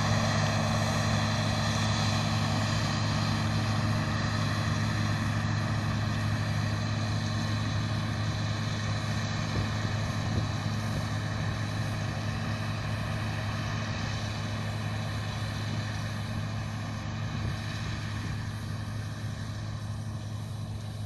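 Claas Lexion 450 combine harvester running steadily at work: a low diesel drone with several steady higher tones from its machinery, gradually fading over the second half.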